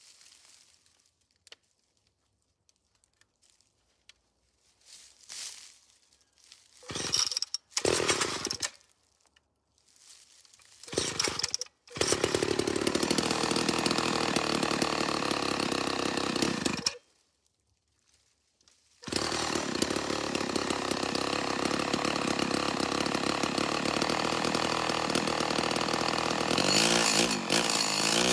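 Vintage Homelite XL-12 two-stroke chainsaw, 3.3 cubic inches, being started: it sputters in a few short bursts, catches about twelve seconds in and runs for about five seconds. It cuts out, then after about two seconds runs steadily again and is revved briefly near the end.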